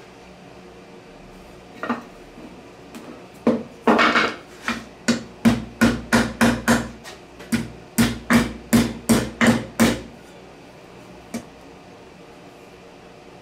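Hammer striking a sheet-metal plate clamped in a bench vise, folding it over the vise jaws. It is a run of about eighteen sharp metallic blows, two to three a second, from about three and a half to ten seconds in, with a single knock before and one after.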